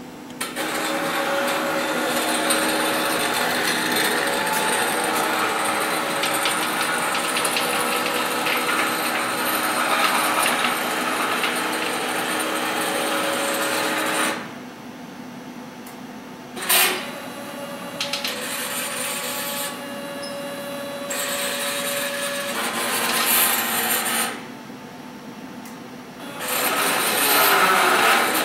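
Stepper motors driving the gantry of a CNC plasma table through a program: a buzzing, squeaky whine with steady tones, stopping twice between moves, with one sharp click in the first stop. The buzz and squeak come from the stepper motors moving at slow speed, not from friction; the X-axis motor is very noisy and a little jerky at low speeds.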